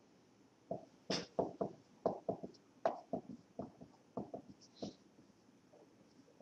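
Dry-erase marker writing on a whiteboard: a run of faint, short squeaks and scratches, one per pen stroke, about three or four a second, dying away about five seconds in.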